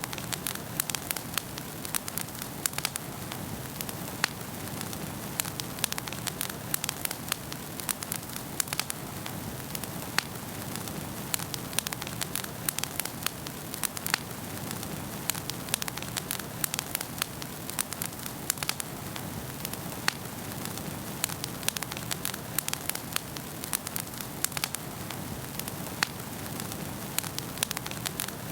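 Wood fire burning in a fireplace: a steady low hiss of flames with frequent sharp, irregular crackles and pops.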